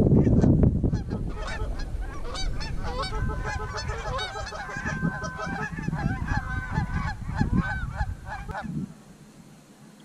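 A flock of Canada geese honking, many calls overlapping, as the birds circle over the decoys. The honking dies away about nine seconds in. A low rumble fills the first second.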